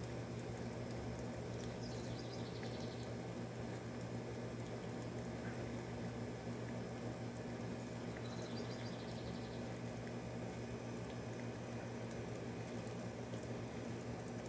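A home air conditioner running with a steady hum over a soft, even rush, with rain falling outside. Two brief high chirps come through, about two seconds in and again about eight seconds in.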